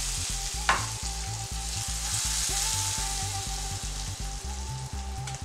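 Hot oil-and-ghee tempering sizzling on the surface of a yogurt-and-gram-flour curry just after it is poured from a small iron ladle, thinning toward the end. A single sharp tap sounds under a second in.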